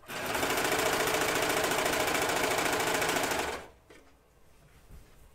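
Serger (overlock machine) running at a fast, steady speed, stitching elastic onto a garment's waistband, then stopping about three and a half seconds in.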